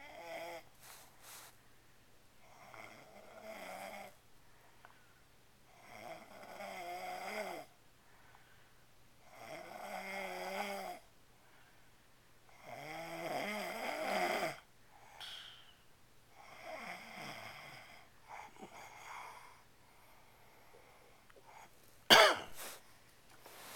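A person snoring in their sleep: about six long snores, one every three to four seconds, the last ones weaker. Near the end comes a single sudden sharp sound, the loudest thing here.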